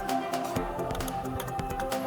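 Background music with sustained tones and quick percussive clicks.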